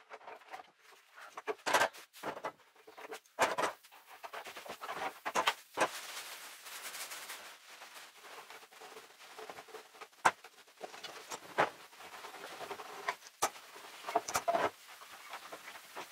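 Steel bar clamps being loosened and lifted off a glued wooden panel, giving scattered sharp clicks and clanks as they are released and set down, with plastic sheeting rustling in between.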